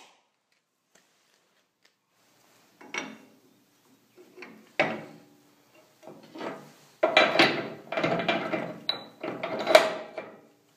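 Steel parts knocking, clinking and scraping together as they are fitted by hand into a loader bucket's tilt-pivot bracket. A few separate knocks start about three seconds in, then a busier run of clatter and scraping comes over the last few seconds.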